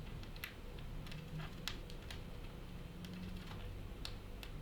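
Light, irregular clicks and taps of the small plastic parts of a Korg NTS-1 kit being handled and pressed into place, about eight or nine over a few seconds.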